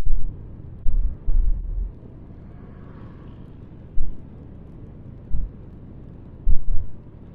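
Wind gusts buffeting an action camera's microphone: short, irregular low rumbles about a second in, around four and five seconds, and twice near seven seconds, over a steady low hiss.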